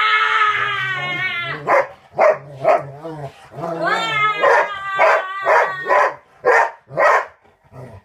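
A King Poodle howling with long drawn-out calls, at the start and again about four seconds in, between runs of repeated barks about two a second.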